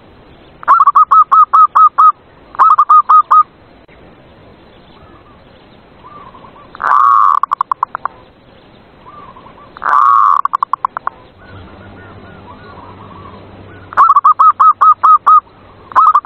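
Zebra doves (perkutut) cooing in six bursts of rapid staccato notes. Some bursts open with a longer, louder note and trail off into quicker short ones. Fainter coos from other doves sound in between.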